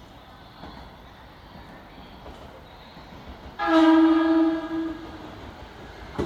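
Horn of an arriving E217 series electric train: one blast just over a second long, about halfway through. It stands over the low rumble of trains in the station.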